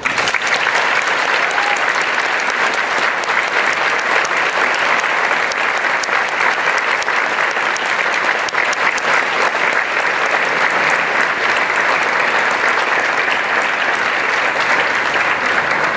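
Audience applause: dense, steady hand-clapping from a large room full of people that breaks out all at once.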